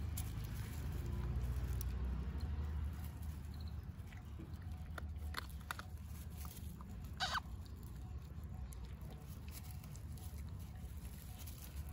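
Puppies eating dry kibble off leaf-strewn ground: scattered small crunches and rustles over a low steady rumble that fades after about three seconds. One brief, sharper sound stands out a little past seven seconds.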